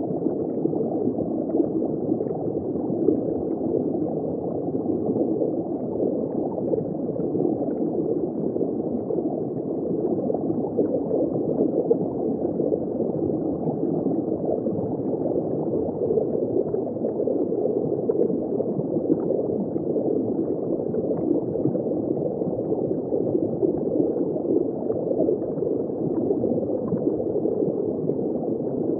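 Steady, muffled gurgling of circulating reef-aquarium water, unchanging throughout.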